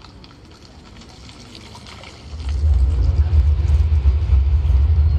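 Faint open-air crowd ambience, then about two seconds in a loud, deep bass rumble from the show's loudspeakers swells up and holds steady, the start of a dark passage of the soundtrack music.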